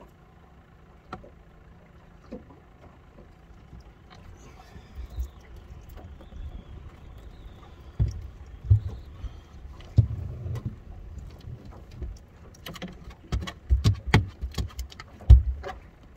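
Wind buffeting the microphone on an open fishing boat, with low thumps and then a busy run of sharp knocks and clatter near the end as a freshly caught channel catfish is handled aboard.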